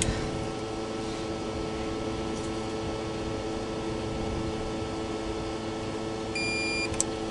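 Steady background hum, with a few ratchet clicks at the start. About six seconds in, a digital torque wrench gives a single high beep of about half a second, signalling that the oil pump bolt has reached the set 20 newton-metres, followed by one click.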